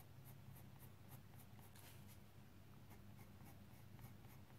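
Coloured pencil scratching on paper in quick short strokes, several a second, as dark shading is hatched into drawn hair. Faint, over a steady low hum.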